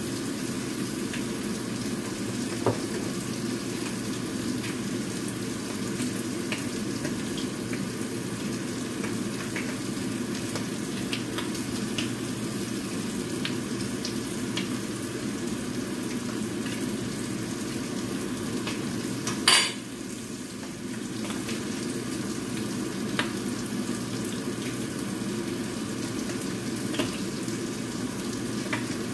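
Korean scallion-and-squid pancake frying in a nonstick pan with a steady sizzle. Light ticks of tongs and a spoon against the pan come through it, and there is one sharp clank about two-thirds of the way through.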